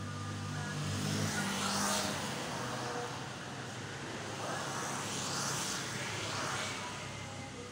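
Road vehicles passing by, in swells of rushing noise about two seconds in and again twice near the end, over a low engine hum that fades after the first two seconds.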